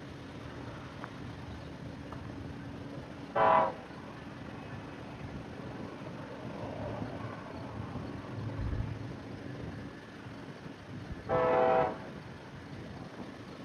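A BNSF locomotive's Nathan K5LLA five-chime air horn sounding two short blasts, about eight seconds apart, over a steady low background rumble.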